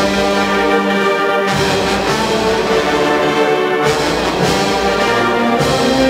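Wind band playing a processional march: brass and woodwinds hold full chords that change about every two seconds.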